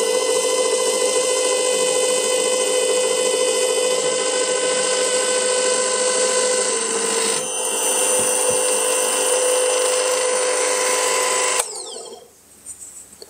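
Bosch PBD-40 drill press motor running with a steady whine, then cut off suddenly near the end by its emergency stop, spinning down with a brief falling whine.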